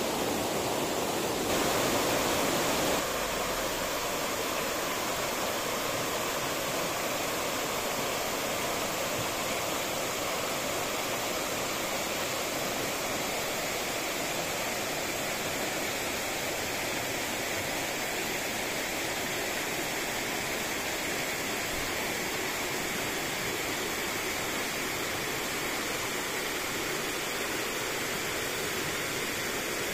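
Flowing water rushing steadily, with a slight drop in level about three seconds in.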